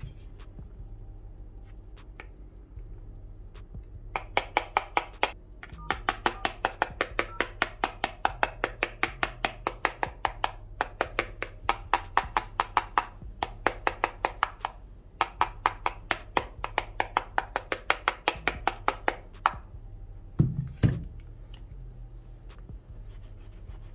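Metal hammer tapping repeatedly on the Samsung Galaxy A32's glass screen: sharp, ringing knocks about four a second, in runs with short pauses. Near the end come two duller, heavier knocks.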